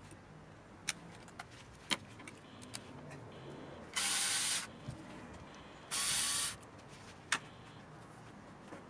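Aerosol spray can hissing in two short bursts, each under a second, about two seconds apart. A few sharp clicks come before and after.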